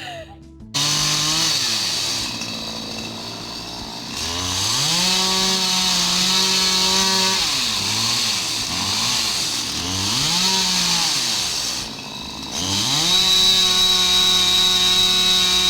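Chainsaw revving while cutting up a fallen tree limb. The engine rises to high speed and holds for a couple of seconds, drops back, blips up and down several times, then is revved up and held again near the end.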